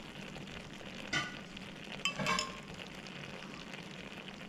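A steady, faint sizzling hiss from the pot of layered biryani rice on the heat, with two light metal clinks of a spoon, about one and two seconds in.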